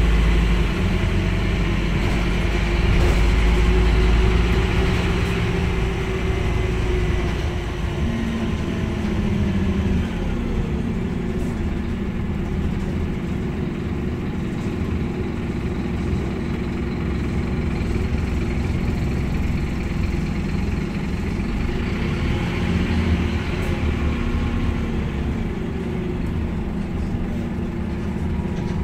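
Scania N230UD double-decker bus's five-cylinder diesel engine and drivetrain heard from the upper deck while riding. A deep rumble, loudest in the first few seconds, with whines that rise in pitch twice as the bus pulls away and accelerates.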